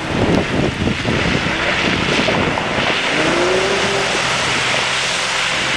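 A lifted 4x4 SUV drives hard through a deep mud puddle. Its engine revs over the rush of splashing, spraying water, and the engine note rises about three seconds in.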